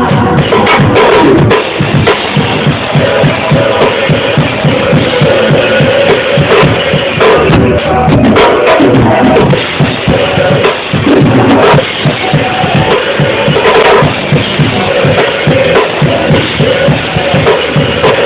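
Live band music driven by a drum kit, with a steady beat of bass and snare drum hits under sustained instruments or voices, recorded loud.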